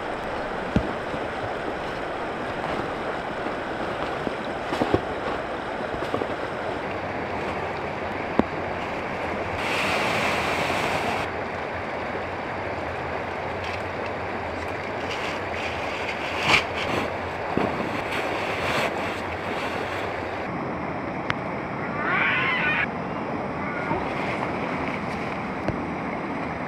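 Steady rushing of a fast river, with scattered rustles and knocks of camping gear being packed into a dry bag.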